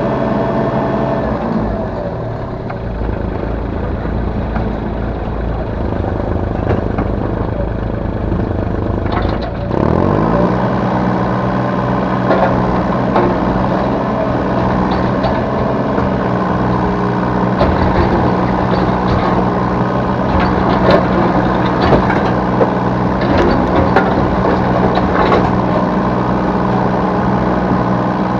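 Yanmar B3 Sigma 3-ton mini excavator's diesel engine running under hydraulic load, with scattered knocks and clunks from the digging work. About ten seconds in, the engine sound dips and then rises in pitch to a higher steady speed.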